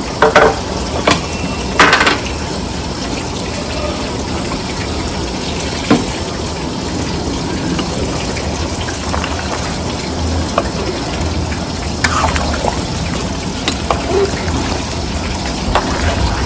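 A large metal pot of broth boiling hard, a steady bubbling rush, with a metal ladle knocking and scraping against the pot now and then as it is stirred.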